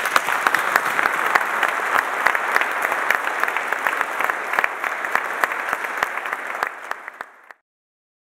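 Audience applauding: a dense clatter of many hands clapping that thins a little and then cuts off abruptly near the end.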